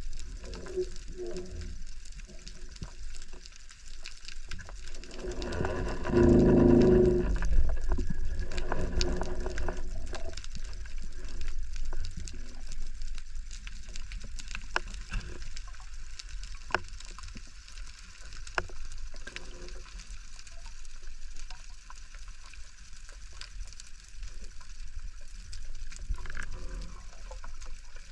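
Underwater sea ambience heard through a camera housing: a muffled watery rush with scattered sharp clicks. About six seconds in, a louder murky swell comes through for a few seconds and then fades.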